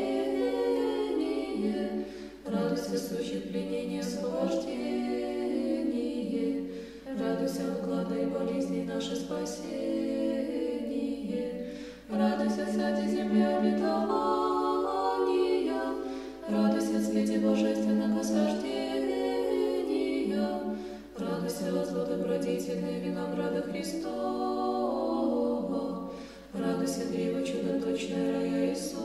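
Unaccompanied Orthodox church choir singing a slow chant, phrase after phrase of about four to five seconds with a short breath between each.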